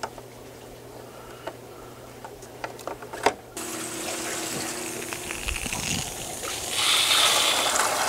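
A few light plastic clicks as parts are seated in a hang-on-back aquarium filter. About three and a half seconds in, water starts rushing from a Python water-change hose, with a steady hum under it, and it grows louder near the end as the hose refills the filter box.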